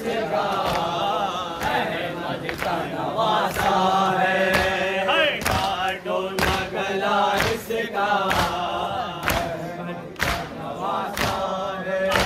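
A group of men chanting a nauha (mourning lament) together, punctuated by sharp beats about once a second.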